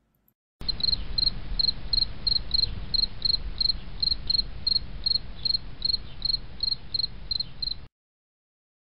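Cricket chirping in an even rhythm, about three chirps a second, over a steady low rumbling hiss. It cuts in shortly after the start and cuts off abruptly near the end.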